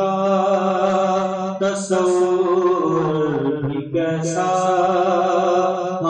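Naat, an Urdu devotional song in praise of the Prophet, sung in long drawn-out melodic lines over a steady low drone.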